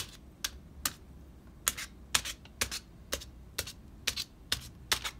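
Toothpick punching holes in aluminium foil stretched over a baking dish: about a dozen crisp clicks, roughly two a second, one for each hole.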